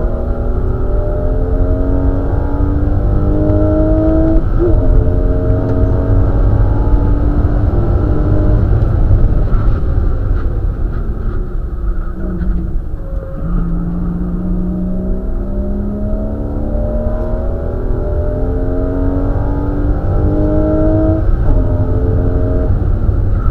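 Porsche Boxster's flat-six engine, heard from inside the cabin at racing speed. It revs up through several gear changes, drops away under braking and downshifts about halfway, then climbs through the gears again, over a heavy rumble of road and wind noise.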